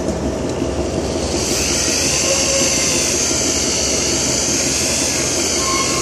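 Vacuum pump on a PVC material degassing barrel running steadily with a low hum. A high, loud hiss joins about a second in and carries on.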